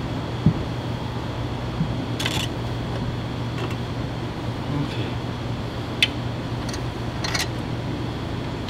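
Steady machine hum with a low drone throughout. Over it come a few light clicks and two short scraping rustles from hands working the windshield's metal mounting brackets.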